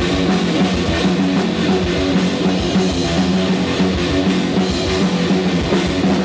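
A metal band playing live and loud: electric guitars and a drum kit in a fast, dense instrumental passage.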